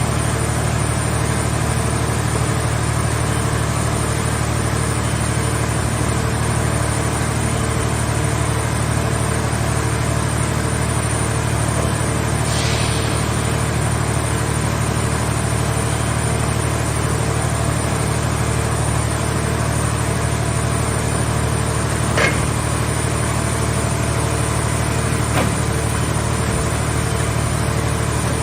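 Scrap car shell baler's engine running steadily at idle, with a brief hiss about halfway through and two sharp knocks a few seconds apart near the end.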